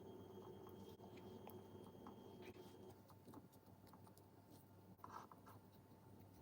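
Near silence: faint room tone with a low steady hum and a few soft scattered ticks.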